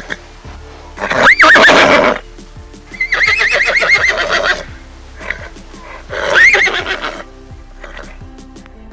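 Horse whinnying three times: a short call about a second in, a longer quavering one about three seconds in, and another shortly after six seconds. Steady background music plays underneath.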